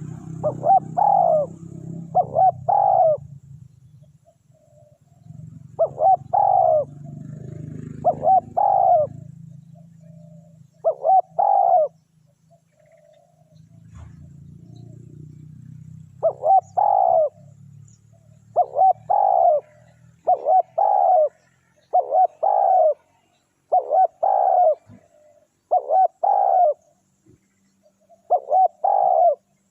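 Spotted doves cooing: short coos in groups of two or three, repeated every couple of seconds, more closely spaced in the second half. A low rumble runs under the calls in the first two-thirds.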